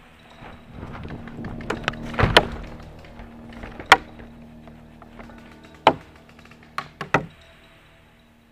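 Paintball player's gear rustling and brushing as he scrambles low behind a bunker, with about half a dozen sharp paintball pops scattered through it. The loudest pops come about two seconds in and near four seconds.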